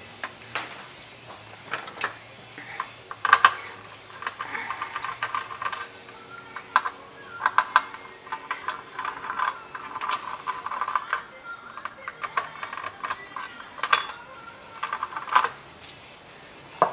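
Irregular clicks, taps and scraping of tools on a small metal heatsink as it is worked loose and pulled off the processor chip of a circuit board.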